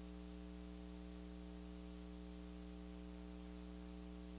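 Low, steady electrical mains hum with a faint hiss underneath.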